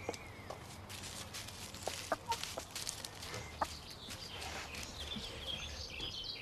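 Domestic hens clucking, with scattered light knocks.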